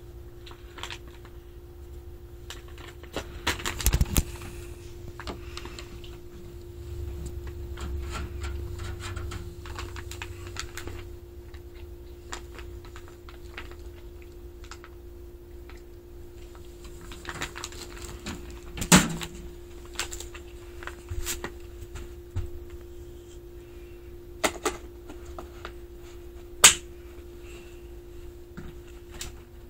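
Scattered sharp clicks and taps, a few of them loud, over a steady faint hum.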